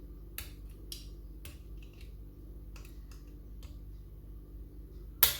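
Lever mortice lock being picked: scattered small metallic clicks of the pick wire and tension tool working the levers, then one loud, sharp click near the end.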